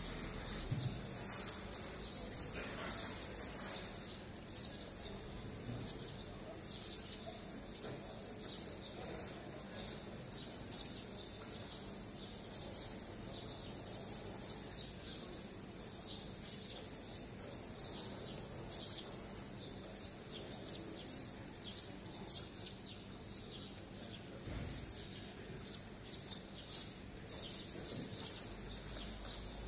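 Swallows giving short, high chirps about twice a second: alarm calls as they dive at and mob a cat.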